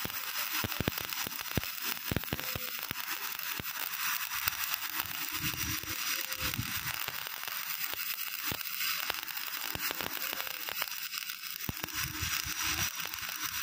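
Stick-welding arc of an E6013 electrode burning on a carbon steel flange-to-pipe joint: a steady hiss broken by many sharp clicks and pops as the rod melts off.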